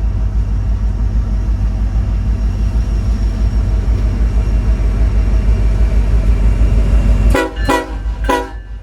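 Diesel locomotives rumbling steadily as they pass, then the lead Union Pacific SD70ACE's air horn gives three short toots in quick succession near the end, a friendly greeting from the crew.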